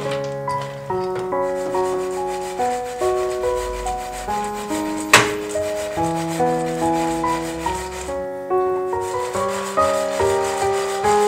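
Chopped pecans scraping and rustling in a dry pan as they are stirred and tossed to toast, with a brief pause past the middle and one sharp knock about five seconds in. Gentle keyboard background music plays throughout.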